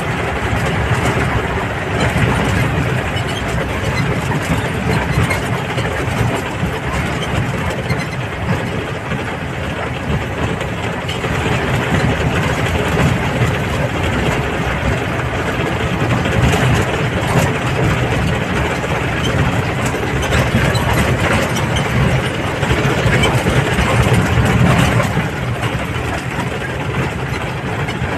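Engine of a moving vehicle running steadily along a rough dirt road, with road rumble mixed in. It grows a little louder about halfway through and again near the end.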